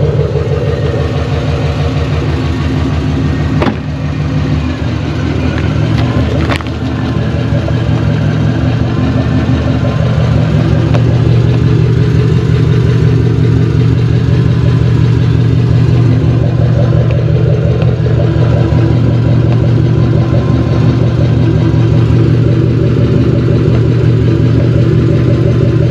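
Turbocharged car engine idling steadily, heard close up, after a loud bang on the road that the owner suspects was a boost leak. Two sharp clicks about 4 and 6½ seconds in.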